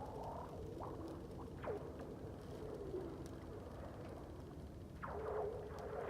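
Freshly freezing river ice making eerie ricocheting sounds: a tone that rises at the start, then a few sharp falling chirps. About five seconds in, a quicker run of chirps sets in over a steady tone.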